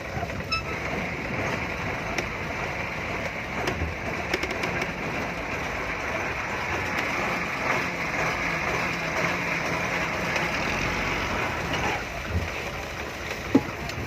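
Fishing boat's engine running steadily, with one sharp click near the end.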